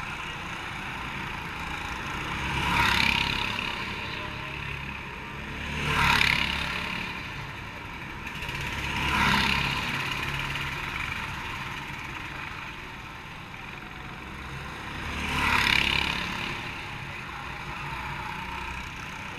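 Racing karts' engines passing by one at a time, four passes, each rising and fading over a second or two, over a steady background hiss.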